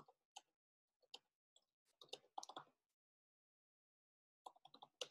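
Faint computer keyboard typing: scattered key clicks, with a short run about two seconds in and another near the end.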